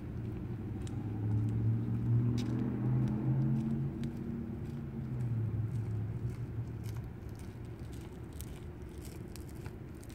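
Low engine hum of a motor vehicle passing, swelling about a second in and fading after about six seconds, with scattered faint clicks over it.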